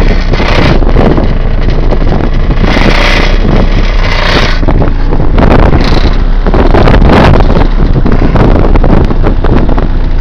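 Sundown Audio SA-12 12-inch subwoofer in a pickup truck playing a very low bass track, which the owner puts at about 28 Hz, loud enough to flex the truck's tailgate. Wind gusts buffet the microphone.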